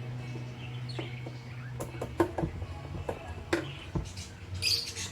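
Quiet background music with a steady low tone, over scattered sharp clicks and knocks and one short high squeak near the end.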